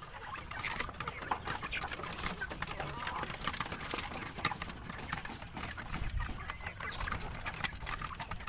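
Philippine native chickens in a wooden coop giving soft, short clucks while being handled, among many light taps and knocks against the slats.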